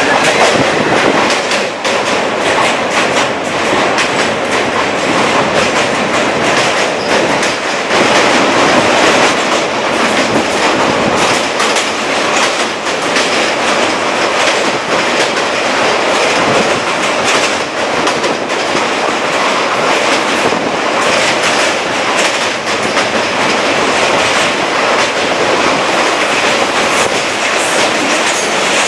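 Indian Railways passenger coach running at speed over a steel truss bridge, heard from the open coach doorway: a steady loud rumble of wheels on rails with sharp clicks as the wheels cross rail joints.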